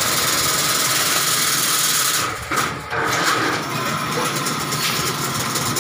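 Automatic chain link fencing machine running: a steady, dense mechanical clatter from the wire-weaving mechanism. It dips briefly about two and a half seconds in.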